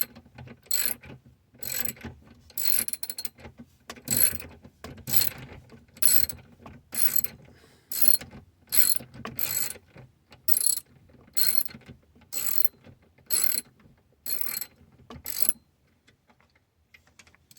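Ratchet wrench clicking in short strokes about once a second as a bolt on a Ford steering column is turned out; the strokes stop near the end.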